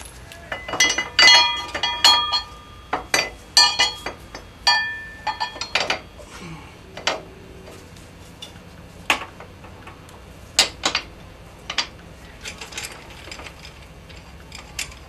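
Metal parts clinking and ringing as the rear brake caliper bracket is handled and fitted at the motorcycle's rear axle: a quick run of sharp clinks in the first few seconds, then occasional lighter clicks and knocks.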